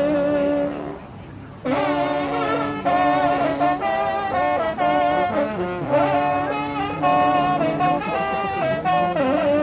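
An ensemble of large coiled hunting horns playing a fanfare in harmony. The notes are held and then change pitch, with a short break about a second in before the playing resumes.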